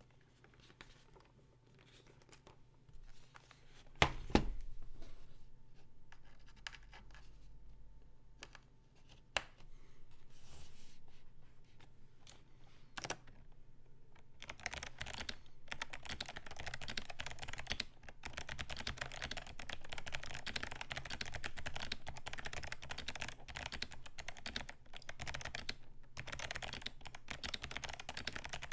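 Typing on a Command65 mechanical keyboard with clicky Kailh Box Navy switches, a POM plate and MT3 keycaps. A few isolated keystrokes and a single thump about four seconds in, then fast continuous typing from about halfway.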